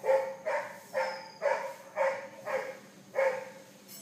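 A dog barking repeatedly, about two barks a second, stopping a little after three seconds in.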